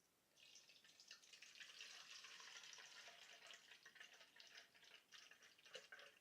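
Water pouring into the 3-litre water tank of an ultrasonic humidifier: a steady stream starting about half a second in and running for about five seconds, then thinning to a few drips near the end.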